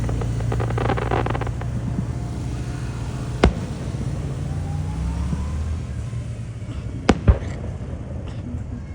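Fireworks going off: a spell of crackling in the first second or two, a sharp bang about three and a half seconds in, and two bangs in quick succession near the end, over a steady low rumble.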